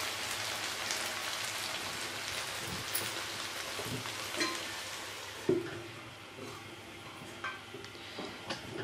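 Biryani rice sizzling softly in an aluminium pot on a low flame, its water cooked off, while the pot is covered with a cloth and lid for dum: cloth rustling and a few light knocks, the loudest about five and a half seconds in. After that knock the sizzle is quieter, the pot now covered.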